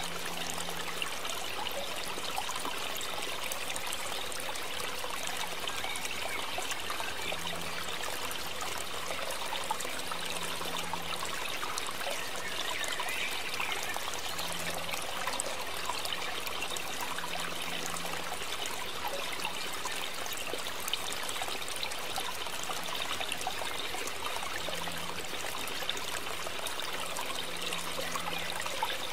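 Water trickling steadily, at an even level throughout with no pauses.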